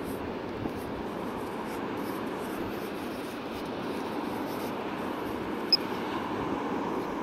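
Steady rushing noise of wind and sea surf, with one short high-pitched electronic beep from a metal detector about six seconds in.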